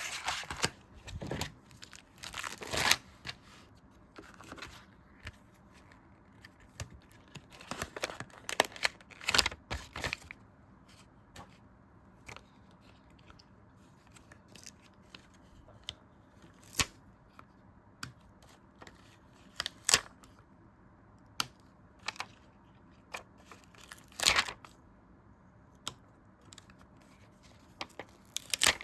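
Stickers being peeled off their backing sheets and handled on paper in close-up: short, irregular crackling peels and light clicks, bunched in clusters with quiet gaps between.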